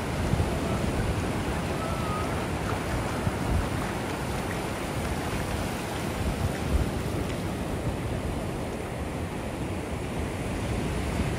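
Ocean surf washing onto the beach in a steady rush, with wind buffeting the microphone and adding a fluctuating low rumble.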